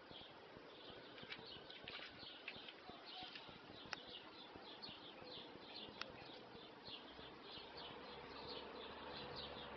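Faint bird chirping: a quick run of short, high chirps, a few each second, with a couple of sharp clicks.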